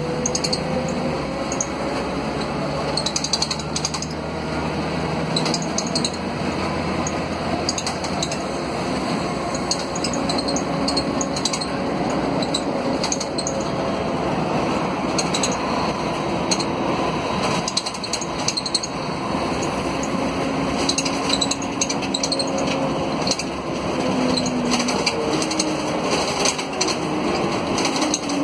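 The Mercedes-Benz OM457LA inline-six turbodiesel of an articulated Mercedes-Benz O500 UA city bus, heard from inside the passenger cabin as the bus drives. Its pitch climbs slowly through the first dozen seconds and drops away near the end. The bus's interior fittings rattle and click throughout.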